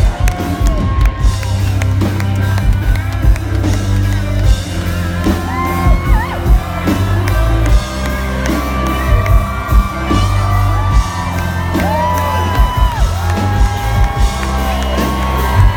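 Live country band playing loud, bass-heavy music through an outdoor PA, with a singer holding long notes and fans whooping.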